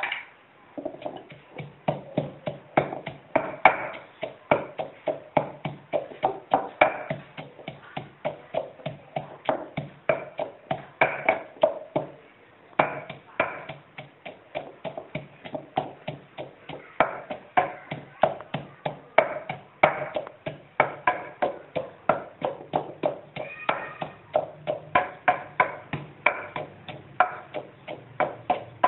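Wooden pestle pounding ingredients in a clay mortar: steady, regular knocks about two to three a second, each with a short hollow ring, with a brief pause about twelve seconds in.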